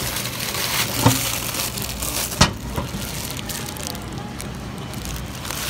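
Crinkling of a plastic-wrapped squishy toy being handled, with sharp knocks about a second and about two and a half seconds in.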